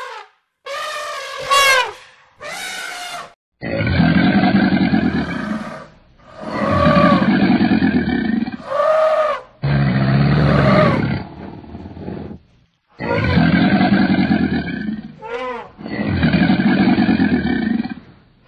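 An elephant trumpets twice, the first call rising steeply in pitch. Then a large animal gives about six deep, loud roars, each lasting a second and a half to two and a half seconds, with short pauses between them.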